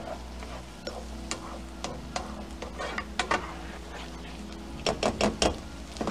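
Wooden spoon stirring risotto rice and broth in a nonstick frying pan, scraping and tapping against the pan over a low sizzle of the simmering broth. A quick run of sharper spoon knocks comes shortly before the end.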